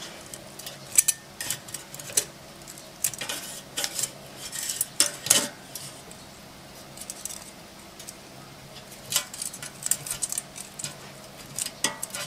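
Metal kitchen tongs clicking and scraping against an air fryer's nonstick basket while fish steaks are turned over halfway through cooking, in scattered, irregular taps.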